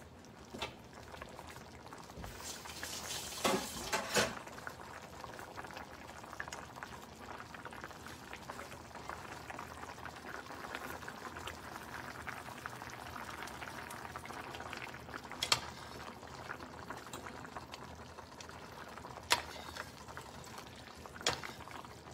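Yogurt-and-potato curry bubbling at a boil in a steel pan, a steady simmering sound. A metal slotted spoon stirs it, clinking sharply against the pan a few times.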